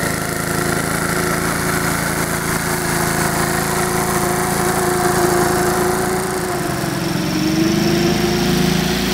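The Clinton engine of a 1952 AirCaps Sit'n Cut riding mower running steadily while mowing, with a slight dip in pitch about seven seconds in.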